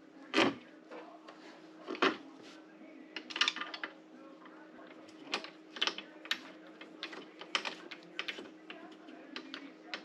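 Irregular clicks and taps of small hard parts being handled and fitted by hand during a repair of rope and hook gear, over a faint steady hum.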